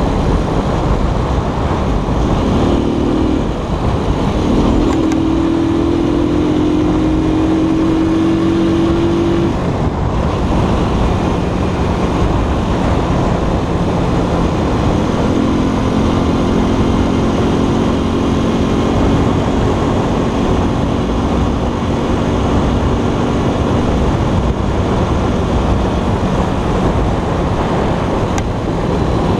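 Keller Crono 110 scooter's small single-cylinder engine running at cruising speed under heavy wind rush on the microphone. The engine note dips briefly about four seconds in, then climbs slowly as the scooter picks up speed, and later fades under the wind before coming back.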